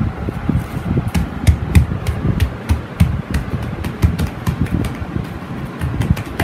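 Hands pressing and patting a glitter foam sheet down onto a glued cardboard circle on a table: a quick run of irregular soft thumps with scattered sharp clicks and rustles.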